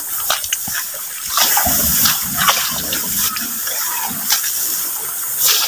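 Footsteps wading and swishing through tall wet swamp grass, about one step a second, over a steady rushing hiss.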